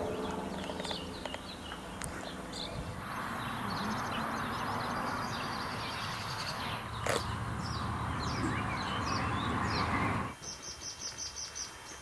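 Small birds chirping and twittering in trees over a steady rushing background noise. Near the end comes a quick run of about half a dozen evenly repeated high notes.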